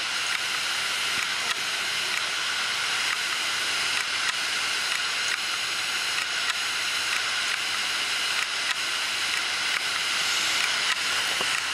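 Seagate Barracuda LP 5400 RPM hard drive running with its cover off: the platter spinning with a steady hiss, and faint ticks now and then.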